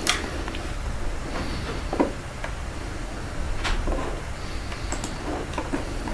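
Steady low hum of room noise picked up by the microphone, with a few faint scattered clicks and knocks.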